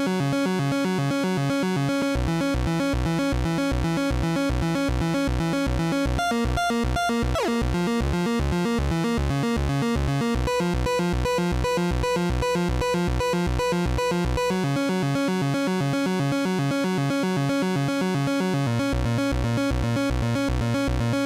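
Eurorack modular synthesizer playing a fast, repeating electronic sequence driven by a Tenderfoot Lattice 12-step sequencer, clocked to cycle in four groups of three notes so the melody jumps to a new short figure every few seconds. A pulsing bass line comes in about two seconds in, drops out about two-thirds of the way through and returns near the end, with one quick falling pitch sweep early on.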